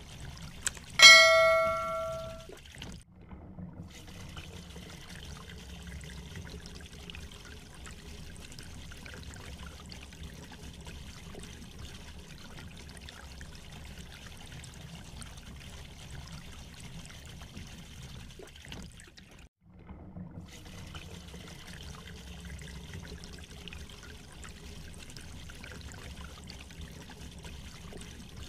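Water from a small DC-motor pump's outlet tube trickles and pours steadily into a muddy garden bed. About a second in, a short bell-like chime rings for about a second and a half and is the loudest sound, typical of a subscribe-button sound effect.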